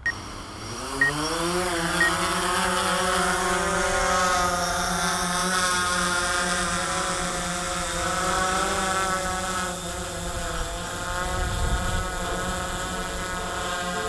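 DJI Phantom 4 quadcopter's propellers whining as it climbs: the pitch rises over the first couple of seconds as the motors speed up, then holds as a steady buzz of several tones. Gusty wind rumbles on the microphone, with a stronger gust near the end.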